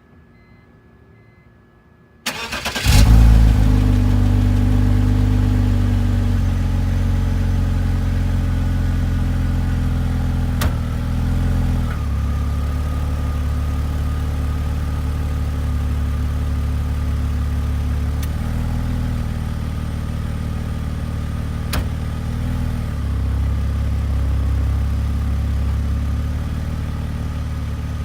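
BMW E46's engine cranking and catching about two seconds in, then idling steadily; the idle speed steps a few times as it settles. Two short, sharp clicks are heard in the middle.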